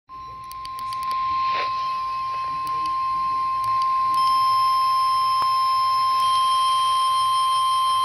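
NOAA Weather Radio 1050 Hz warning alert tone sounding from a Midland weather radio's speaker: one steady high-pitched tone that grows louder over the first four seconds as the volume is turned up, then holds. It signals that a warning, here a severe thunderstorm warning, is about to be broadcast.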